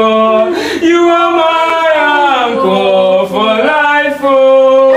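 A man singing a slow gospel worship song in long held notes that slide between pitches, with the line "You are my anchor for life oo".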